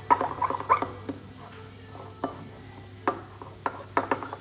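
Metal fork stirring a thick, creamy blue cheese sauce in a ceramic bowl, clinking against the bowl's sides in irregular taps.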